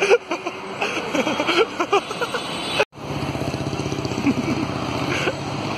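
Roadside traffic with a motor vehicle's engine running steadily in the second half, and voices of passers-by in the first couple of seconds and again near the end.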